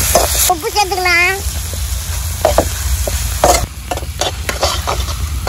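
Metal ladle stirring and scraping tomatoes and onions frying in an iron kadai over a wood fire: oily sizzling with repeated sharp scrapes and knocks of the ladle on the pan. A brief wavering pitched call sounds about a second in.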